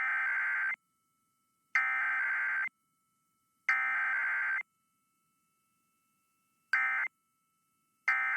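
Emergency Alert System SAME data tones: three long buzzing header bursts about a second apart, then, after a pause, short end-of-message bursts, two of them near the end.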